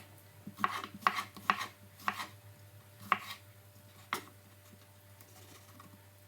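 Kitchen knife chopping a tomato on a cutting board: a handful of sharp, irregularly spaced strokes that stop about four seconds in.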